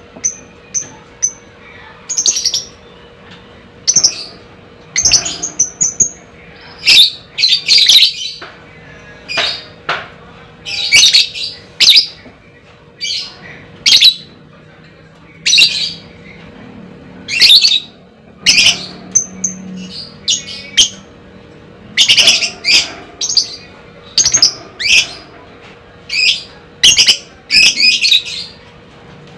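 A lovebird giving repeated shrill, high-pitched calls about once a second, with a few quick chattering runs.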